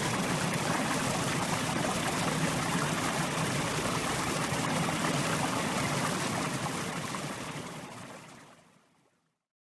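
Mountain river flowing over rocks, a steady rushing of water that fades out near the end.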